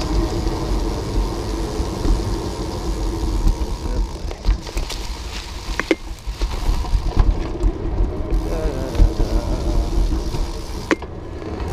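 Wind buffeting the microphone of a bicycle-mounted camera while riding, with tyre noise on pavement and concrete. There are two sharp clicks, about six seconds in and again near the end.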